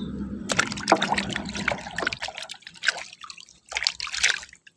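Water trickling and splashing in irregular spurts as a mud-covered toy M16 rifle is rinsed by hand, dying away near the end.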